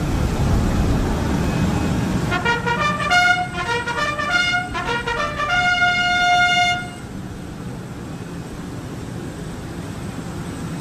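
A brass fanfare of trumpets or bugles sounding a short ceremonial call, the kind played for an arriving dignitary. It begins about two seconds in with several quick notes, moves between notes, and ends on a long held note about seven seconds in, over a steady low rumble that carries on after it stops.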